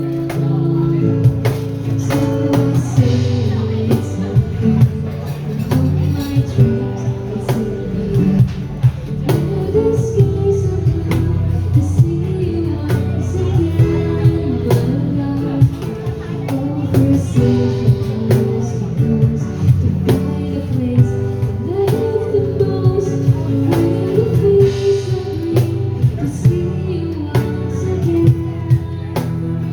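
Live band playing a pop song: a singer's voice over guitar and a drum kit keeping a steady beat, with held bass notes underneath.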